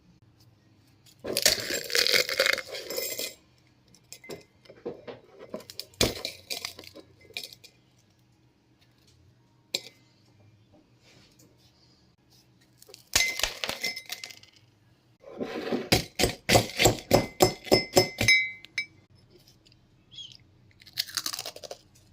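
Oreo cookies being crushed in a cup, crunching and cracking, with a utensil clinking against the cup. Partway through comes a fast run of sharp taps, about three a second, for a few seconds.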